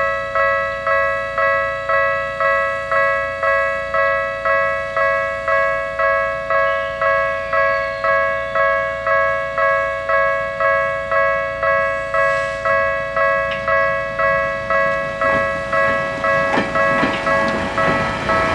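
Railway level crossing warning bell ringing in an even repeating clang, about two strikes a second. Near the end the rumble of an approaching train grows underneath it.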